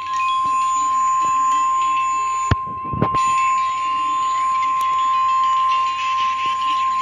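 Emergency Alert System attention tone before a tornado warning: a single steady, high-pitched tone near 1 kHz, held for about seven seconds. A brief click and dropout cut into it about two and a half seconds in.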